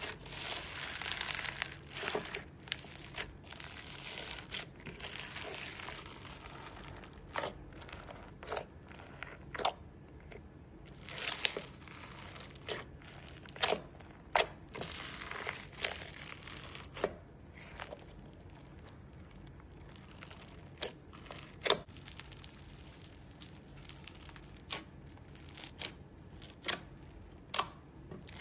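Crunchy slime being squeezed and worked by hand, crackling densely for the first several seconds, then giving scattered sharp pops and clicks.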